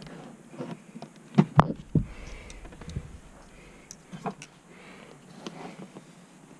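Plastic trim clips being worked loose with pliers from a car's rear seat back panel: scattered clicks and knocks, the loudest pair about a second and a half in, followed by a low thud.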